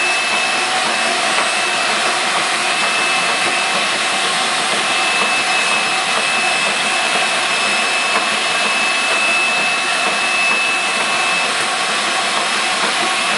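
Concrete floor-grinding equipment with its dust-extraction vacuum running steadily: a loud, even rush with a steady high whine over it.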